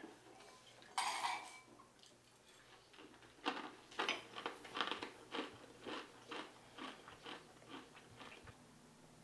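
Someone chewing crunchy food, a run of crunches about two a second that grow fainter, after a single louder crunch about a second in.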